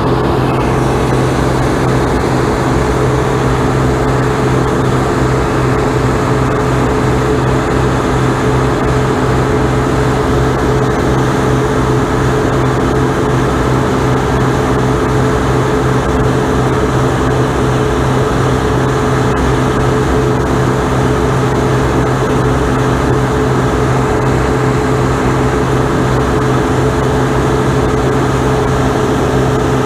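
Harvest machinery's diesel engine running steadily at constant speed, a loud, even drone with a low hum.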